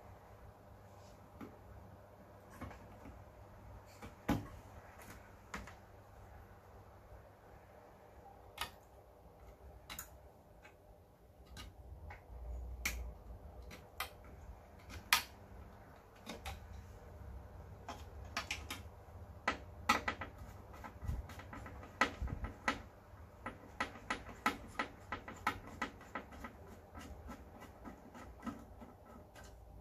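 Irregular small clicks and taps of a screwdriver, screws and metal parts as an LCD TV's chassis and boards are taken apart. Sparse at first, coming thick and fast in the second half.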